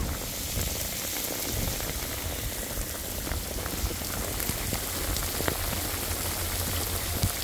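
Torrential rain falling steadily: a dense, even hiss with scattered drop ticks.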